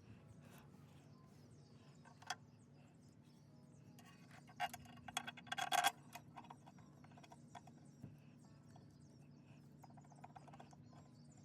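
Faint clicks and clinks of hand tools on metal while fitting bolts on an engine: a single click about two seconds in, then a quick run of clicks about halfway through, over a faint steady low hum.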